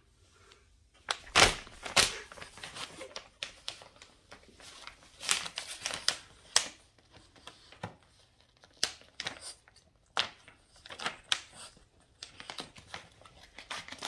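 A Boston terrier mouthing and tugging at a brown kraft-paper mailer bag, the paper crinkling and crackling in irregular bursts, loudest about a second and a half in.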